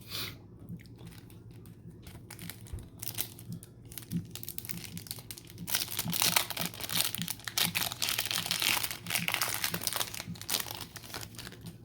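Trading-card pack wrapper crinkling and tearing as a pack of 2014 Sage Hit football cards is opened, the crackling getting louder about halfway through.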